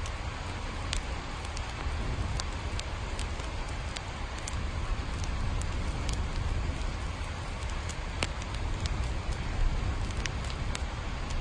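Steady rain: an even hiss with scattered sharp drops ticking on a hard surface and a low rumble underneath.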